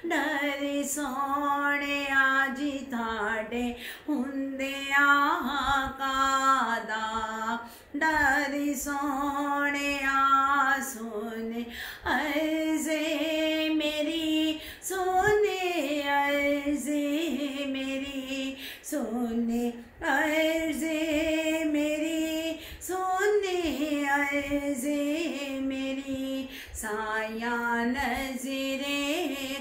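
A woman singing a Punjabi naat, a devotional song, in long drawn-out phrases. Her held notes bend and waver, with brief breaths between phrases.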